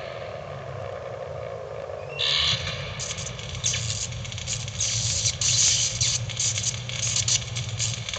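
Spooky sound effects from a Halloween projection soundtrack played through a speaker: a low monster growl trails off over the first couple of seconds. After a sudden noise, a run of irregular scratching and rattling follows.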